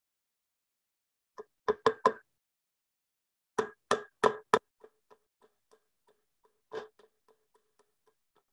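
Small nails being hammered into a wooden board: a quick run of sharp metal-on-nail strikes about two seconds in, four more about two seconds later, and a single strike near seven seconds. Faint, even ticks, about three a second, run in between.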